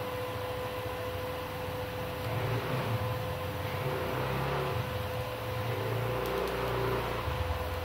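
Manual argon (scratch-start TIG) welding arc powered by a MultiPro MMA 120 G-KRK inverter welder: a continuous hiss and buzz carrying a constant high hum, with an uneven low rumble underneath.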